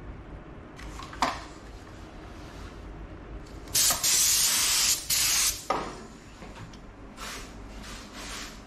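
Compressed air hissing out of a paint spray gun in two bursts about four seconds in, a long one of about a second and then a short one, as the trigger is pulled. A couple of sharp clicks fall around the bursts.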